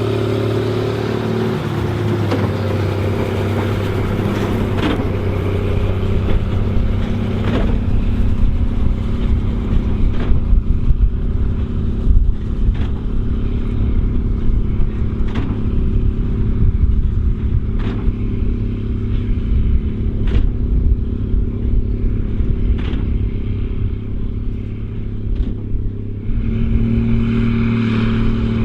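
Case 2294 tractor's diesel engine running steadily under load while pulling a Massey Ferguson 190 big baler in the field. A sharp knock from the baler repeats about every two and a half seconds. Near the end the engine note steps up and gets louder.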